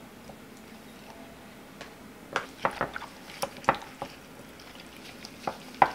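Sliced beef being mixed into a bulgogi marinade in a glass measuring cup with a spatula and a gloved hand: quiet at first, then a run of sharp clicks and knocks against the glass about two to four seconds in, and one more near the end.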